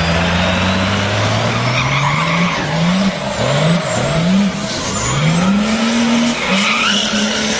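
Turbo-diesel engine of a 1928 Dodge rat rod, revved hard under load: the pitch climbs, rises and falls several times about a second apart, then holds at high revs. A high whistle rises and falls above the engine, and the tyres skid as the car spins donuts.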